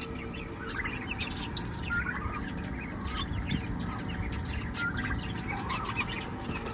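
A flock of young guinea fowl and other young fowl giving short, scattered chirps and calls while feeding, over a faint steady hum.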